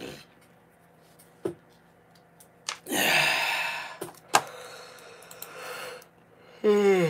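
A man yawning: a loud breathy rush about three seconds in, then near the end a drawn-out voiced yawn sliding down in pitch. A few light clicks and knocks come in between.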